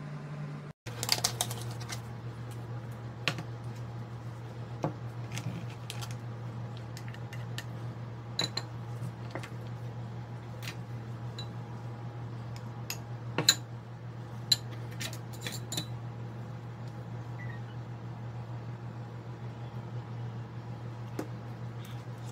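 A metal spoon clinking against ceramic bowls in scattered light clicks, the sharpest about thirteen seconds in, over a steady low hum.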